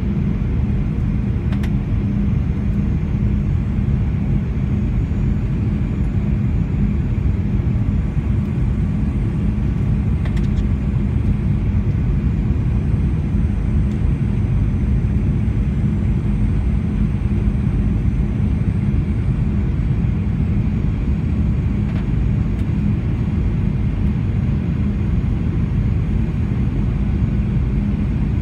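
Steady in-cabin rumble of a Boeing 737-900ER on final approach, heard from a window seat over the wing, with a steady hum from its CFM56-7B turbofans running underneath.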